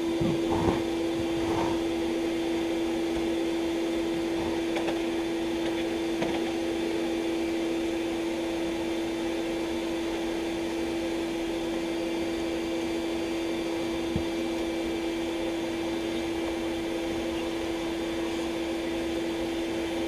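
Bee vacuum running steadily with a constant hum, its hose nozzle drawing honeybees off the exposed comb. There are a few light knocks, mostly near the start.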